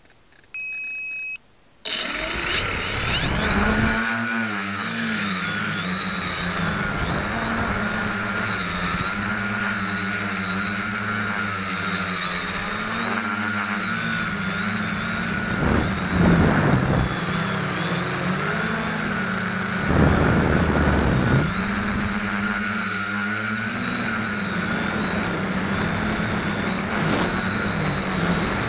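A short electronic beep, then the SK450 quadcopter's four electric motors and propellers spin up about two seconds in and run with a whine that rises and falls with throttle, heard from a camera mounted on the frame. Two louder bursts of noise come partway through.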